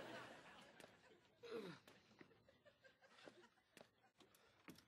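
Near silence, with a brief faint voice sound falling in pitch about a second and a half in and a few faint scattered clicks.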